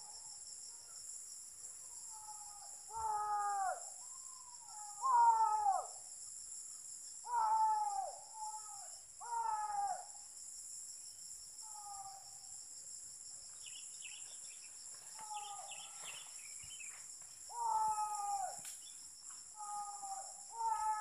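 Hunting dogs baying in the distance: about ten short yelping calls that fall in pitch, coming in irregular clusters, the loudest about five seconds in. Under them runs a steady, high-pitched drone of insects (cicadas or crickets).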